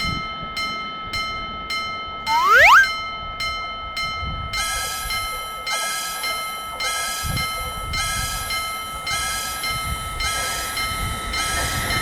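Japanese railroad crossing warning bell ringing in a fast, even repeat of metallic tones, with a short rising whistle about two seconds in. About halfway through the ringing pattern changes to a slower, fuller repeat of about two strikes a second.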